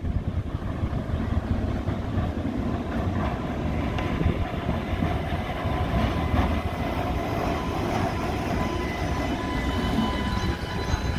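Streetcar rolling along its street track and passing close by, a steady rumble of wheels on rail with a few faint, steady high tones.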